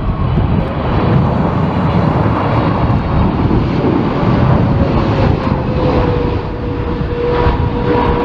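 Jet airliner engines running over a rough, gusty low rumble, with a faint whine that slides slowly down in pitch over the second half.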